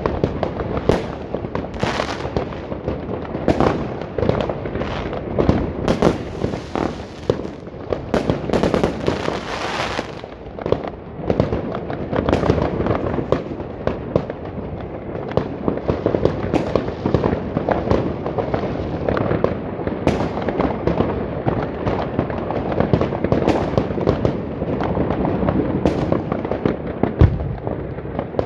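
Many consumer fireworks and firecrackers going off at once, overlapping bangs with no let-up. About a third of the way in there is a stretch of high crackling hiss, and near the end comes one especially heavy boom.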